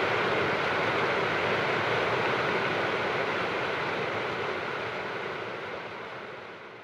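Steady rush of a fast river running over rocks, fading out near the end.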